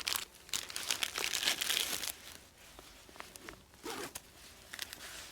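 Crinkling and rustling as gear is handled and pulled from a pouch, densest for about the first two seconds, then scattered small clicks and rustles.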